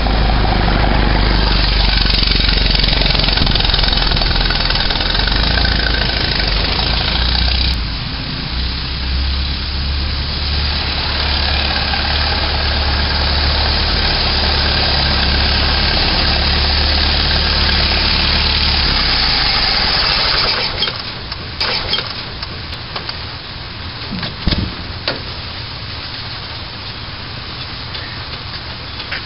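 Ford Model T's four-cylinder engine running steadily as the car drives up the street. About two-thirds of the way through the engine stops, followed by a few sharp clicks and a thump.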